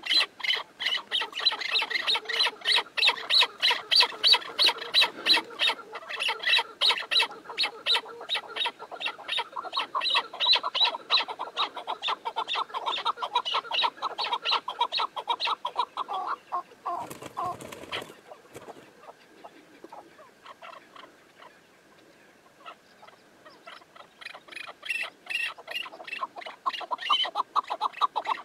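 Chukar partridges calling: a fast run of harsh clucking notes, several a second, that thins out past the middle and comes back strongly near the end. A short rustling burst comes just past the middle.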